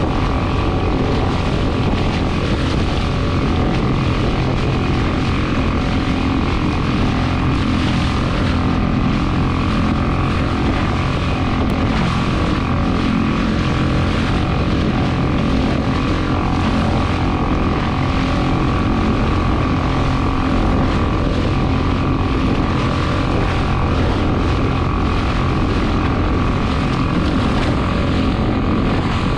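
Boat motor running at a steady speed.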